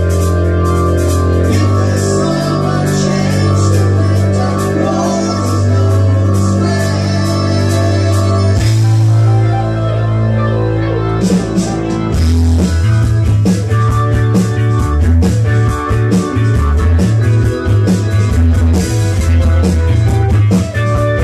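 A live rock band plays with keyboards, guitar and a drum kit. Its held keyboard chords and low bass notes ring under steady cymbal hits. About eight seconds in, the drums drop out for about three seconds while a low note holds, then the band comes back in with a driving, pulsing beat.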